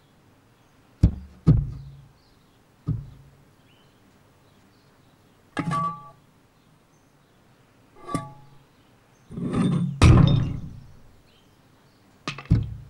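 Cartoon sound effects of a cat bumping against a glass door: a string of sudden thuds, mixed with a few longer squeaky rubbing sounds as the cat presses against the pane.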